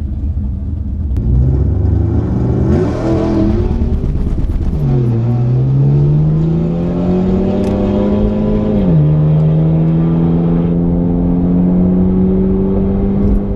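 2013 Ford Fusion's engine at full throttle through a cherry bomb glass-pack exhaust with straight tailpipes, launching down a drag strip. The revs climb, a rough rattling patch about three seconds in is the wheels spinning and hopping, then the engine pulls up steadily with a sudden drop in pitch near nine seconds as it shifts up.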